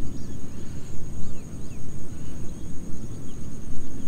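Wind rumbling on the microphone, with a steady high-pitched insect drone of crickets or cicadas and scattered faint bird chirps.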